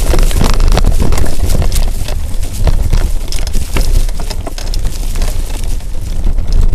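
Mountain bike clattering and rattling over a rough, rocky, leaf-covered dirt trail, with many irregular knocks, and wind rumbling on the microphone.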